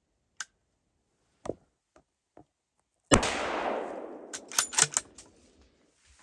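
A single hunting-rifle shot about three seconds in, its report echoing away through the woods for about two seconds. A quick run of sharp clicks and knocks follows about a second after the shot.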